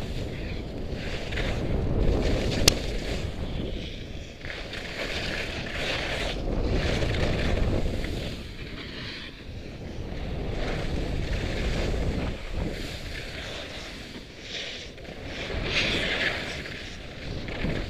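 Wind rushing over an action camera's microphone as a skier descends, with skis scraping and hissing on packed snow in swells that rise and fade every few seconds with the turns. A single sharp click about three seconds in.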